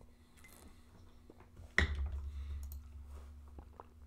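Faint computer keyboard and mouse clicks, with one sharp knock a little under two seconds in, followed by a brief low rumble. A faint steady hum runs underneath.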